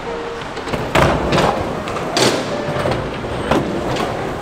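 Skateboard wheels rolling on a skatepark surface, with a sharp clack of the board about a second in and several more knocks and slaps of the board landing or hitting obstacles through the rest.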